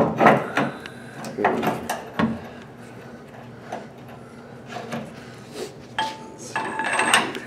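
Metal clanks and knocks of a socket wrench and breaker bar being fitted and worked on a rusty leaf-spring shackle bolt under a pickup truck, loudest in a cluster in the first second, then a few more knocks and lighter handling. A couple of brief squeaks near the end.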